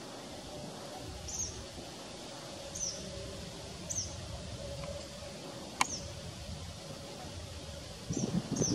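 A bird chirping: about six short, high notes, each falling in pitch, spaced a second or more apart, over a low background rumble. Near the end, louder gusts of wind buffet the microphone.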